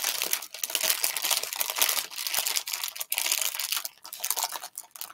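Crinkling of a plastic snack-chip bag being handled and folded, a dense run of irregular crackles.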